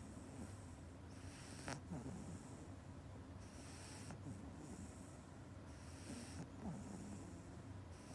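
Pug puppy snoring in its sleep, a faint snoring breath about every two seconds.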